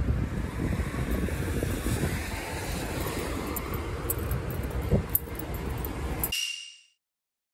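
Outdoor city street noise picked up on a handheld phone while walking: a steady low rumble of traffic with a noisy wash over it, and light clicks in the second half. The sound cuts off abruptly about six seconds in.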